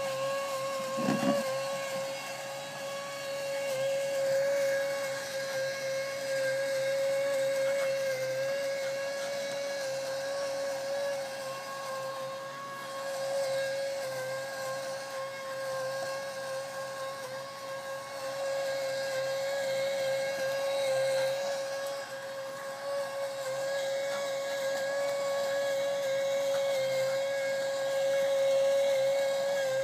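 Small electric motor of a bubble machine whining steadily at one constant pitch, with a brief thump about a second in.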